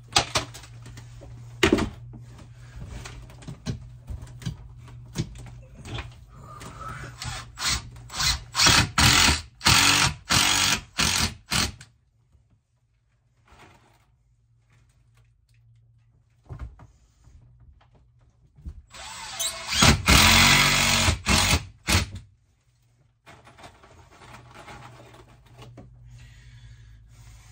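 Power drill driving screws into a camper's shower wall panel: a string of short trigger bursts about eight seconds in, then one longer run about twenty seconds in. A steady low hum runs underneath.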